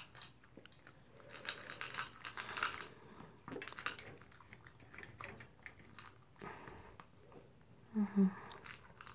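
Toy poodle eating its food from a plastic bowl, gobbling it fast: irregular crunching and chewing. A short voice sound cuts in about eight seconds in.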